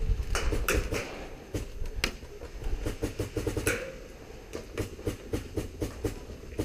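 Skirmish-game gunfire: runs of quick ticking shots, several a second, with a few sharper cracks among them.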